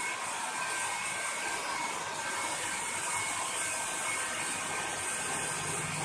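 Hand-held hair dryer running steadily, a constant blowing hiss with a faint steady whine.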